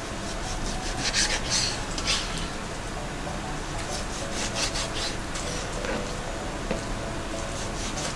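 Kitchen knife angle-slicing raw chicken thigh on a cutting board: short scraping strokes of the blade through the meat and across the board, coming in a few clusters.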